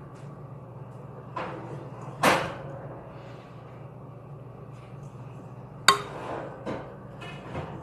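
A few sharp knocks and clunks of things being handled on a table, the loudest about two seconds in and another near six seconds, over a low steady hum.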